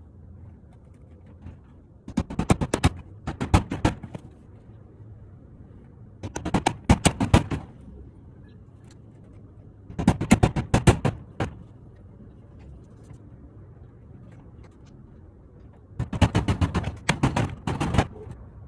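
A power driver sets screws through clear corrugated roofing panels into the wooden shed frame, in four bursts of rapid rattling clicks, each about one to two seconds long.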